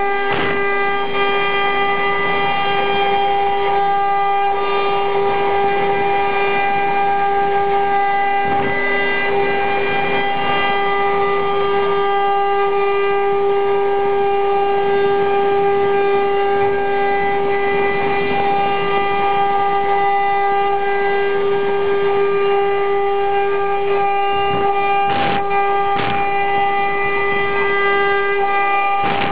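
Eight-head CNC wood router running with its spindles carving wood: a loud, steady high whine with overtones that does not change pitch, with a few brief clicks.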